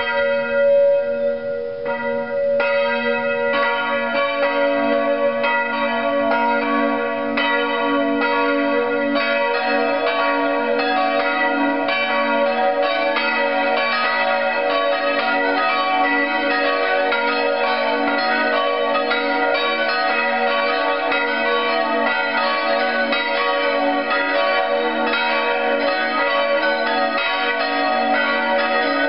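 Full peal of four church bells cast by Grassmayr of Innsbruck in 1947, tuned B–D♭–E♭–G♭. The bells come in one after another over the first several seconds, then all ring together in a steady, dense, overlapping peal.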